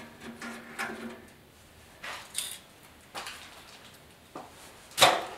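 Hand tools and metal parts clinking and scraping against a barbecue's steel firebox: a few short scrapes and clicks, then a louder, sharp clank about five seconds in.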